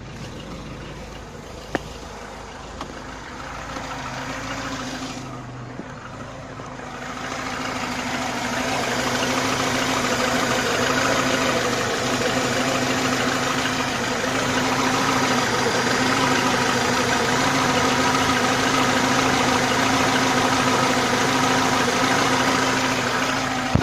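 IZh-2126 Oda car engine idling steadily after a cold start, carrying the knock that appears on cold mornings after the car has stood; the owner does not know its cause. It grows louder about seven seconds in, and there is a single click about two seconds in.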